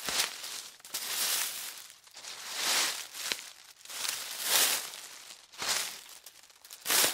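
Footsteps crunching through dry leaves, about six slow steps with a short crackling rustle at each one.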